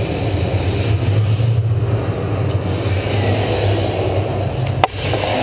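A steady low rumble, with one sharp crack about five seconds in.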